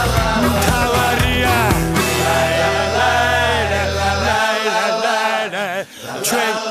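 Background song: a singer over a band. The deep bass part drops out about four and a half seconds in, leaving the voice and higher instruments.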